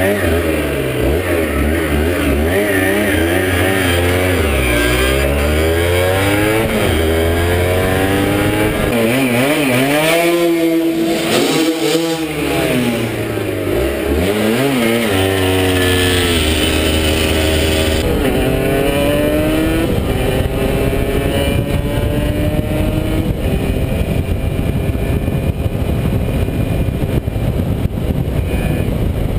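125 cc two-stroke motorcycle engine under way, revving up through the gears with its pitch climbing and dropping again and again. About two-thirds in it settles into steadier running under a loud rushing noise.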